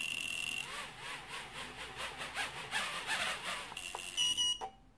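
FuriBee F90 micro quad's brushed motors and propellers spinning on the bench, their pitch rising and falling, with a scraping rub as a propeller grazes a nub on the frame, which the owner puts down to the motors sitting too low. The flight controller's buzzer beeps at the start and again near the end.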